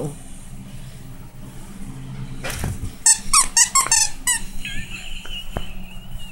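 A quick run of high squeaks about three seconds in, then a long, thin high squeal near the end, as a miniature pinscher chews on its plush bone toy.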